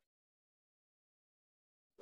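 Near silence: dead digital silence.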